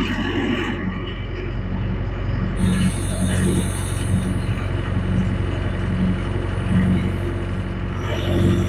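Yanmar diesel engine of a 6.2-ton mini excavator running steadily under hydraulic load as the boom pulls up against an anchored chain. A high hiss joins about two and a half seconds in and fades a few seconds later.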